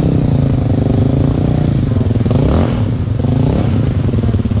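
Sport quad (ATV) engine running steadily, with the revs shifting about halfway through.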